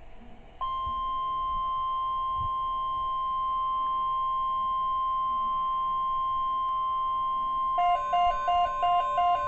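NOAA Weather Radio warning alarm tone, one steady high electronic tone that starts about half a second in and holds, signalling that an alert message follows. Near the end a fast, choppy string of electronic beeps starts over it.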